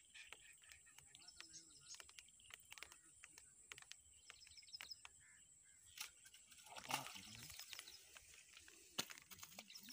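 Faint outdoor ambience: birds chirping and scattered small clicks, with a brief louder noise about seven seconds in and a sharp click about nine seconds in.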